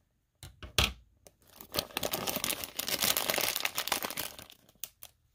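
A single sharp click about a second in, then about three seconds of dense crinkling and tearing as the wrapper of a surprise toy is ripped open.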